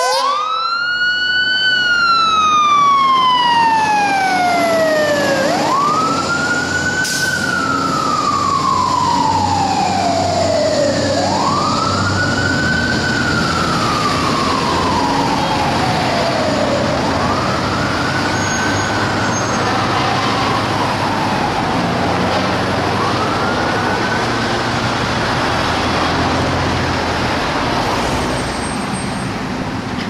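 Fire truck's mechanical siren winding up and coasting down, five times over, each wind-up rising quickly and then falling slowly, growing fainter in the second half as the truck moves off. Traffic and engine noise run underneath.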